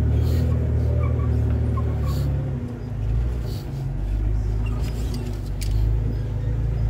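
Open tour Jeep's engine running at low speed across slickrock, heard from a seat in the vehicle: a steady low rumble whose note drops about two and a half seconds in, with a few light clicks and rattles.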